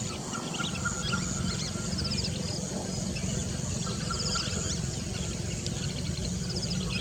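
Birds calling in a wetland chorus: many short high whistles and quick trills, repeating every second or two over a steady low rumble.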